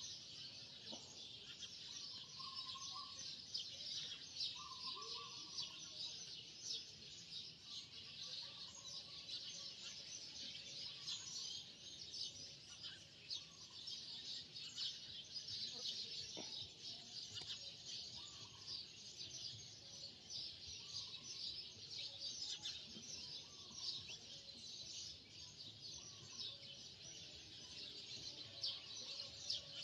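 Birds chirping continuously in a dense, high twittering chorus, with a short lower call repeating every couple of seconds.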